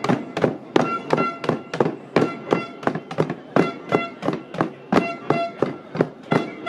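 Pots, pot lids and hand drums being beaten by a walking crowd: a clatter of strikes at about three a second, many of them leaving a ringing metal tone.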